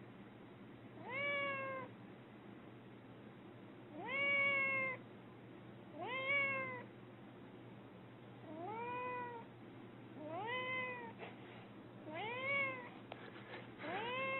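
A domestic cat meowing over and over, about every two seconds: seven drawn-out calls, each rising and then falling in pitch.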